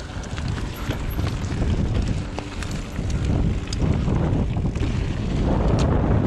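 Wind rushing over the microphone and mountain bike tyres rolling over a rough trail, with scattered sharp clicks and rattles from the bike. It grows louder as the ride goes on.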